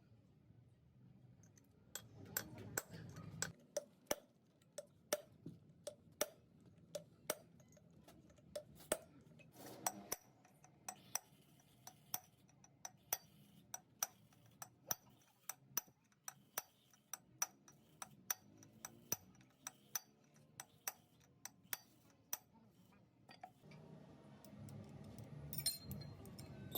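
Light metallic taps, a little under two a second, each with a short ring, like a small hammer striking a steel part. A low hum comes up near the end.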